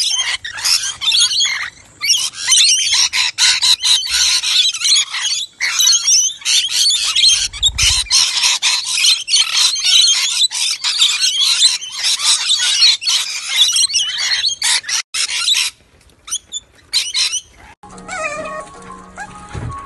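A flock of rainbow lorikeets screeching and chattering densely as they feed. The chatter thins out after about sixteen seconds and stops near the end.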